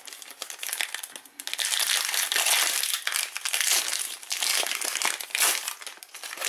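Foil wrapper of a Panini Prizm basketball card pack crinkling continuously as it is torn open and peeled off by hand.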